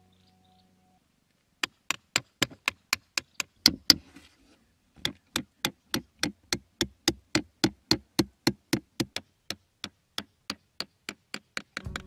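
Hammer tapping a nail through cardboard in a quick, steady run of knocks, about four a second. The knocking starts under two seconds in, breaks off briefly around four seconds in, then goes on.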